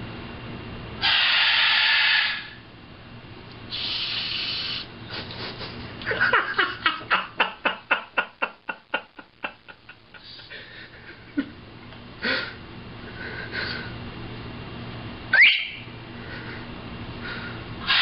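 A parrot calling: two harsh, noisy screeches, then a run of quick pulses, about five a second, that fade away. Scattered short chirps follow, with a brief rising whistle near the end.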